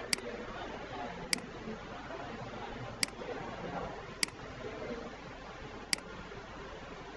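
Computer mouse button clicking five times at uneven intervals, short sharp clicks over a faint steady hiss, as edges and dialog options are selected in CAD software.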